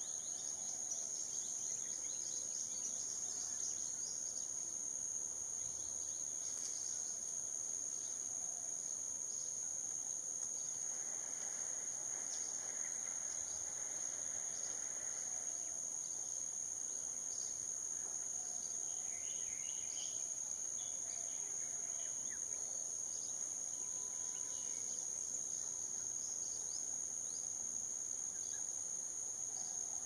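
Steady high-pitched insect drone, with faint scattered bird chirps over it.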